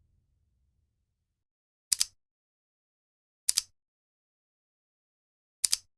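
Three short, sharp clicks, each a quick double click, spaced about one and a half to two seconds apart, with dead silence between them.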